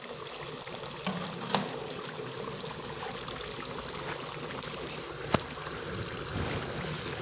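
Singaras deep-frying in hot oil: a steady crackling sizzle, with a few sharp clicks of a metal slotted spatula against the pan, the loudest about a second and a half and about five seconds in.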